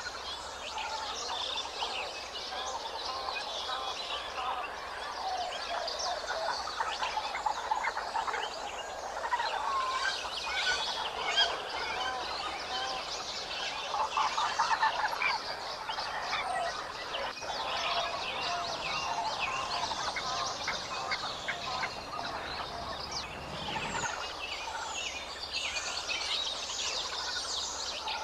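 A dense, continuous chorus of many birds chirping and calling over one another.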